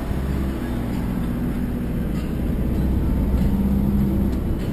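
Steady low rumble of a motor vehicle running, with held low tones that come and go.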